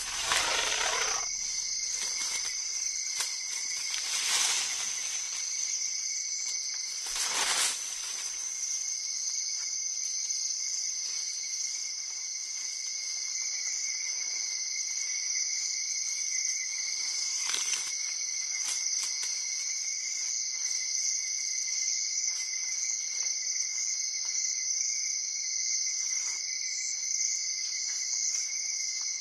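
Steady chorus of night insects: two unbroken high-pitched drones, one higher and louder than the other, with a few brief rustles in the first few seconds and once around the middle.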